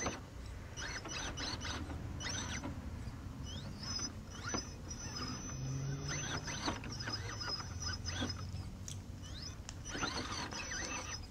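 An RC rock crawler's Holmes Hobbies Revolver brushless motor and drivetrain whining in short bursts of throttle, with its tyres scrabbling on slick, muddy rock as it works for traction.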